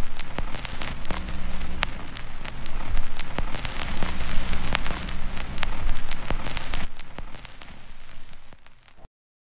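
Old phonograph record's surface noise: a steady hiss full of crackles and pops over a low hum. It fades over the last two seconds and cuts off just before the end.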